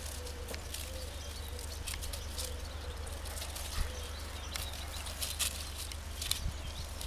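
Welsh springer spaniel puppies and their mother scuffling and digging on dry, stony ground: scattered crunches and clicks of paws and noses among gravel and loose earth, over a low steady rumble.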